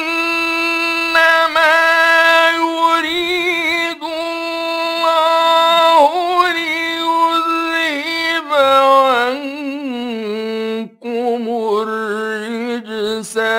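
A man's voice chanting Qur'an recitation in the slow, melodic style, holding long notes with wavering ornaments. About ten seconds in it steps down to a lower note, with a brief break near 11 s.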